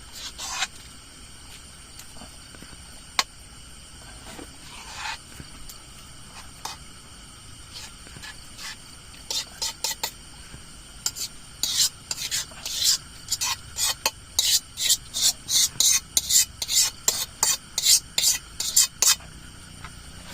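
A utensil stirring and scraping fried noodles in a pan: a few scattered scrapes at first, then, in the second half, a run of quick strokes about two a second.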